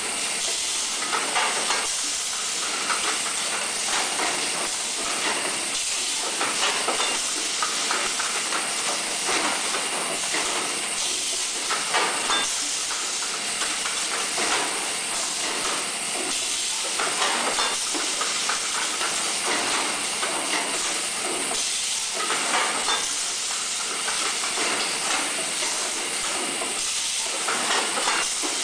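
Automatic brick-bag vacuum packing machine running: a steady hiss of air, broken every second or two by short bursts and clacks from its pneumatic cylinders.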